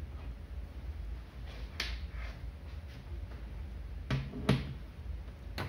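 Patch-lead banana plugs being pushed into the jacks of an electrical training panel: a few sharp plastic-and-metal clicks and knocks, two close together about four seconds in, over a low steady room hum.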